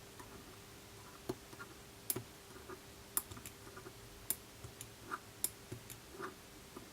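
Small sharp clicks and taps of metal tweezers against the phone as a tape tab is worked loose. They come irregularly, a handful of louder ones roughly a second apart, with softer ticks between.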